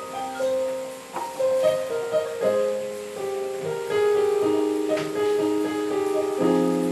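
Keyboard playing slow chords, the notes held for a second or more before each chord change, as the instrumental backing of a song.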